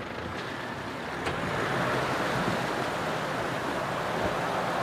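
A four-wheel drive wading through floodwater: water rushing and splashing against the vehicle, growing louder about a second in, with its engine running underneath.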